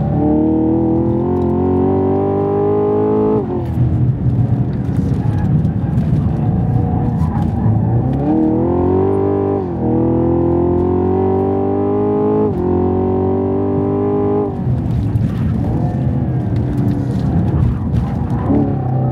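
Camaro SS 1LE's naturally aspirated 6.2-litre V8 pulling hard under full throttle, heard from inside the cabin. The engine note rises through the revs and drops suddenly at each quick upshift, several times over, with lower, uneven stretches between the pulls.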